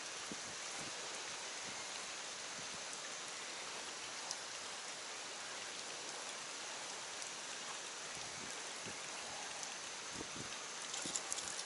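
Steady hiss of flowing creek water, with a few faint clicks near the end.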